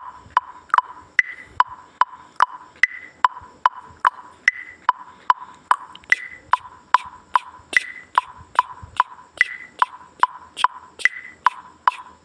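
Background music of short, pitched wood-block-like ticks in a steady beat, about two and a half a second.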